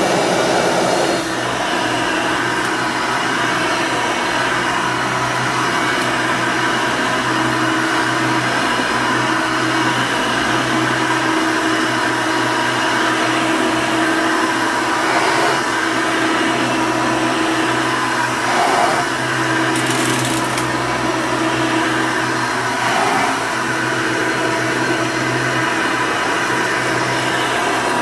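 Hoover Elite II upright vacuum cleaner's motor running steadily, a loud whirring with a constant hum; the level dips slightly about a second in and the sound shifts a little now and then.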